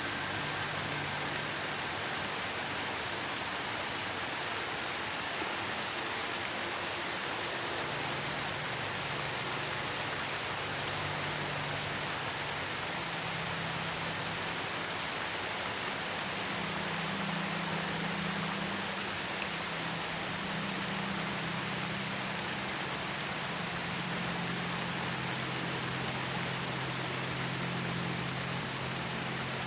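Steady rain falling, an even hiss. Under it are soft, low sustained tones of ambient music that shift to new notes every few seconds.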